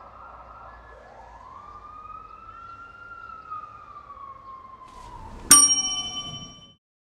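A siren wailing in one long slow rise and fall of pitch over faint street hum. About five and a half seconds in, a single loud bell-like ding rings out and fades over about a second.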